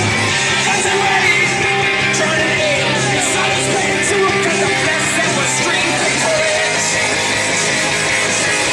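Loud rock music with singing and guitar, played over a PA speaker.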